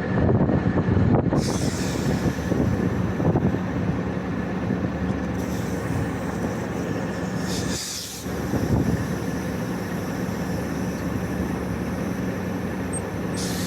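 Steady hum of running HVAC machinery, with hissing as leftover refrigerant is let out of the recovery hoses: a long hiss from about a second and a half in, a short one near the middle and another at the very end.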